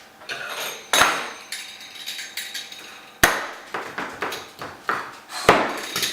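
A metal can of beans being struck again and again to force it open. Three hard, ringing blows land about a second in, after three seconds and after five and a half, with smaller knocks and clinks between them.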